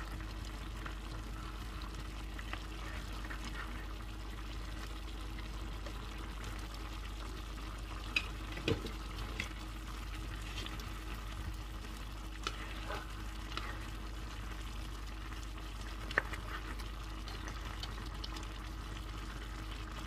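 Chicken wings, potatoes and carrots simmering in a little broth in a frying pan with a steady sizzle, stirred with a ladle that knocks against the pan a few times.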